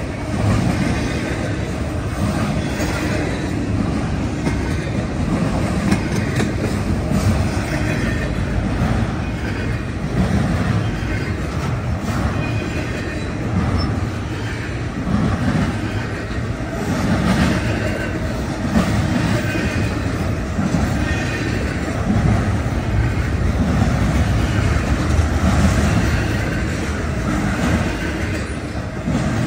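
Double-stack container train passing close by: a loud, steady rumble and clatter of steel wheels on the rails, with a low beat of thumps as each car's wheels roll past.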